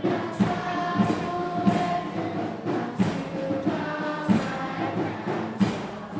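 The school anthem is sung by a girl into a handheld microphone, with a line that runs "a future bright and pure". Percussion hits sound under the voice.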